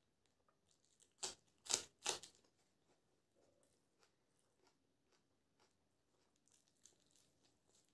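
Crisp raw green chilli crunching three times in quick succession about a second in. Near the end comes a faint rustling and crackling of fresh coriander leaves being handled.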